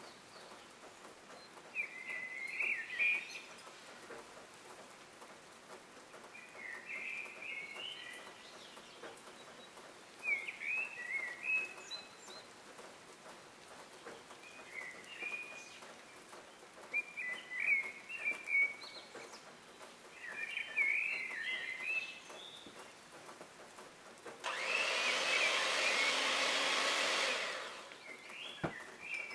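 Electric hand mixer running for about three seconds near the end, whisking egg whites in a glass bowl. Before it, a bird chirps in short bursts every few seconds over a faint steady hiss.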